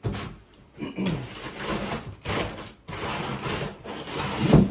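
Packaging being pulled off a boxed computer: a series of rubbing and scraping noises, with a heavier thump near the end.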